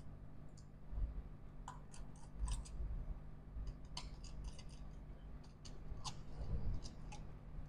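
Scattered light metallic clicks and ticks of a precision screwdriver and small screws being handled while the logic-board screws of an opened MacBook Pro A1707 are taken out, over a low steady hum.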